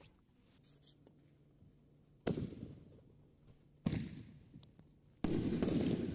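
Fireworks going off: three sharp bangs about a second and a half apart, the third a longer burst, each trailing off in echo.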